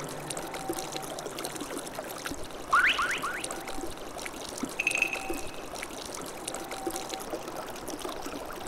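Shallow river water trickling and flowing over stones. About three seconds in come three quick rising squeaks, and a short high steady tone sounds around five seconds.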